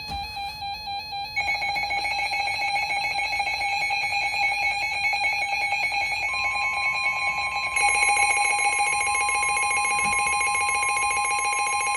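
Electronic weather-alert tones: an alarm of several stacked tones sounding in a rapid pulse, getting louder about a second and a half in and again near eight seconds. About six seconds in, a single steady alert tone joins and holds, the NOAA Weather Radio warning alarm tone that comes before a warning broadcast.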